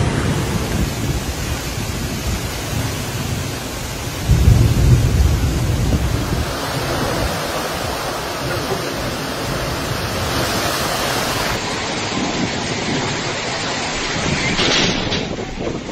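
Storm wind and heavy rain, with wind buffeting the microphone. A loud low rumble comes about four seconds in.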